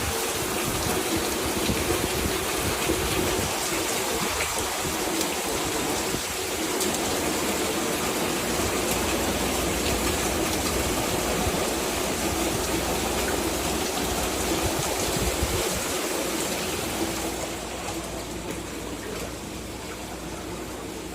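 Steady rush of water in torrential rain: heavy downpour and running floodwater. The sound eases somewhat about three-quarters of the way through.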